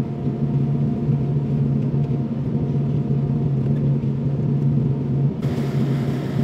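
Kobelco SK75SR excavator's diesel engine running at a steady drone, with a hiss coming in about five seconds in.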